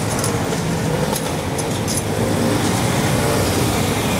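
Road traffic driving past close by: a motor scooter and a car, then a heavy tipper lorry, with engines running and tyres on the road. It grows a little louder in the second half as the lorry comes by.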